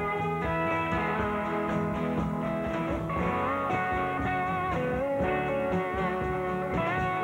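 Blues-style guitar music with a slide guitar, its sustained notes gliding up into new pitches every second or two.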